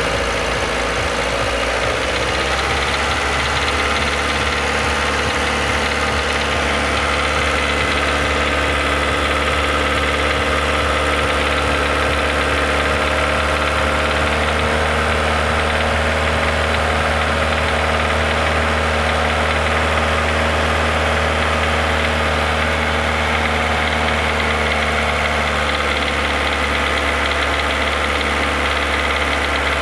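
Renault Logan 1.6 16-valve engine running; its revs climb in the first couple of seconds, then hold steady, with a knock that shows only around 2000 rpm. Dealers put the knock down to a hydraulic valve lifter, and the owner suspects another cause.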